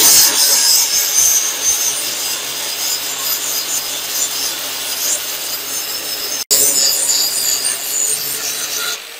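Handheld angle grinder with a flap disc grinding a small piece of steel cut from angle iron: a steady, harsh grinding hiss over the motor's hum. It cuts out for an instant about two-thirds of the way through, then carries on.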